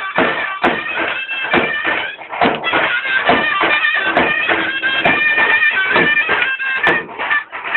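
Folk music on a shrill reed pipe playing a held, ornamented melody over steady drum beats.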